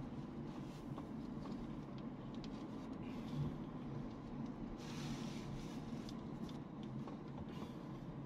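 Car running slowly across a paved car park, heard from inside the cabin: a steady low engine and road hum, with a short hiss about five seconds in.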